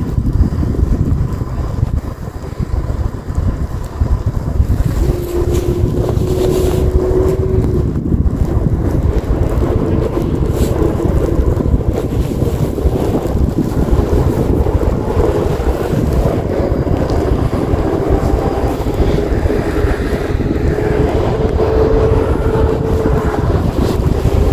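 Wind buffeting the microphone in a snowstorm, over a running vehicle; about five seconds in, a wavering whine rises and falls and carries on to the end.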